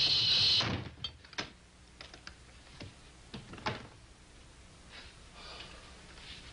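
Music cuts off under a second in. It is followed by scattered, irregular light knocks and clicks from a wooden door and its latch being handled.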